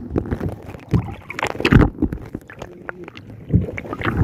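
Sea water slapping and sloshing against the hull of a small fishing boat in irregular splashes, with wind buffeting the microphone.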